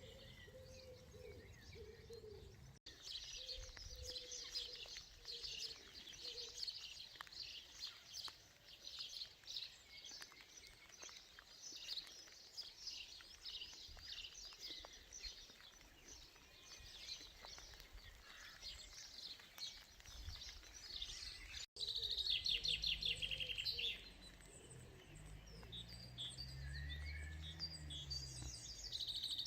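Small songbirds singing and chirping, several at once, with fast repeated trills in the last third.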